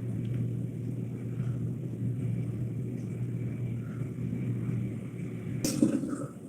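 Steady low rumbling hum, with one short, sharp noise near the end.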